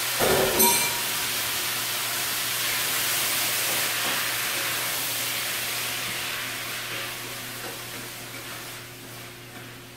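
Chopped fresh tomatoes sizzling loudly in a hot skillet of olive oil and browning garlic as they are stirred, the tomatoes' juice spitting in the hot oil. The sizzle dies down over the last few seconds as the liquid settles.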